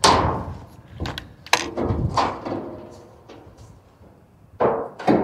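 A loud bang followed by several more knocks and thumps, each with a hollow ringing echo: a person clambering in through the opening of an empty tank.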